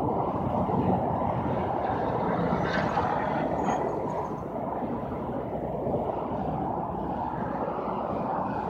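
Steady noise of road traffic on the causeway highway, with no single vehicle standing out. A few faint ticks come about three seconds in.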